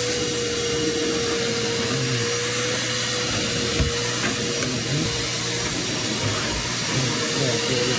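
Wet/dry shop vacuum running steadily as its floor nozzle is pushed over carpet and a plastic mat, with a steady whine from the motor. There is a brief knock about halfway through.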